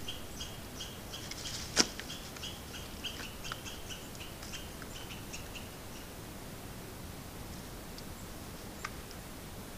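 A bird calling in a rapid series of short, sharp notes, several a second, that die away about six seconds in, over a steady hiss. A single loud snap comes a little under two seconds in, and a fainter click near the end.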